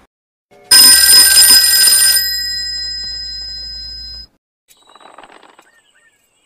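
A metal bell rung rapidly with a rattling clapper for about a second and a half, then left ringing down with several clear high tones until it cuts off abruptly.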